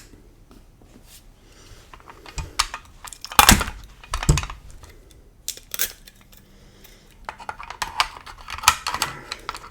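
Scattered clicks and knocks of MP5 parts and the .22 conversion kit's case being handled, the loudest two knocks about three and a half and four and a half seconds in, with a run of light clicks near the end.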